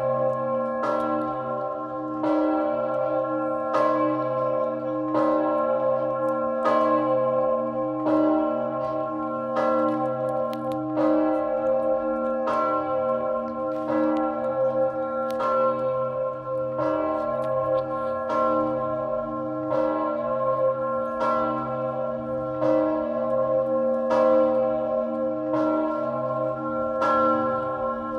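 Augustin, the third-largest bell in the Czech Republic, ringing with deep, even strokes about every one and a half seconds. A low hum with many overtones carries on unbroken between strokes.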